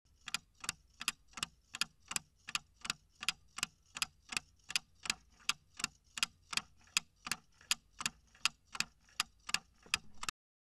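Clock-ticking sound effect marking a quiz countdown timer: even, sharp ticks about three a second, stopping just before the end.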